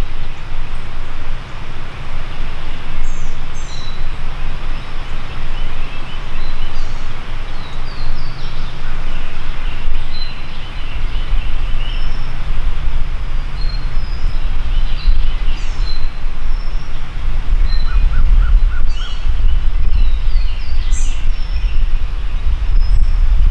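Songbirds chirping and singing in short calls over a steady low rumble, which grows stronger about halfway through.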